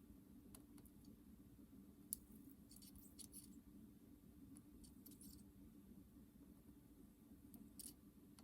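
Near silence: faint, scattered clicks of computer keyboard keys, a few at a time in short clusters, over a low steady hum.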